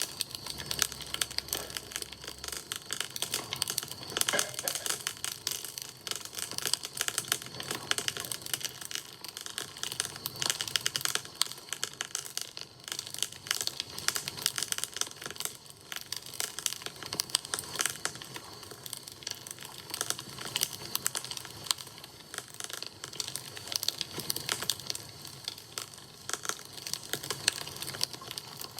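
Wood campfire crackling and popping: a dense, irregular run of sharp snaps that goes on without pause.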